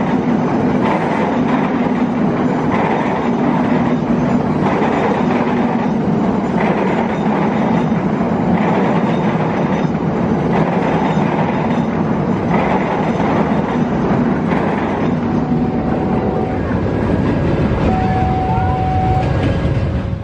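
KA Ciremai passenger train running past close by: a loud, steady rumble of the carriages rolling on the rails, with a faint regular beat of wheels over the track.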